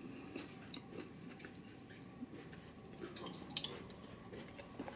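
Faint chewing of a taco with scattered small mouth and handling clicks, then a drink from a can near the end.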